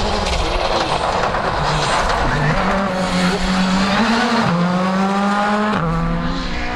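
Škoda Fabia R5 rally car's turbocharged four-cylinder engine driven hard at full revs. Its pitch drops sharply twice in the second half.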